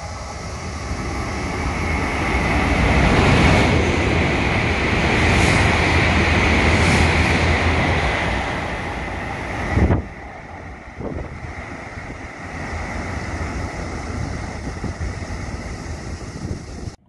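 E7 series Shinkansen passing through a station at speed without stopping: a rush of air and wheel noise that builds over about three seconds and stays loud for several more. About ten seconds in it drops sharply as the train clears the platform, leaving a lower rushing sound.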